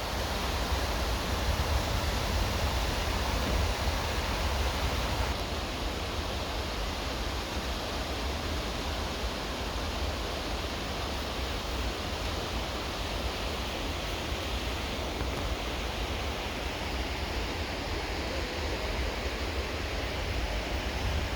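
Steady rushing of a large waterfall, a little louder for the first five seconds.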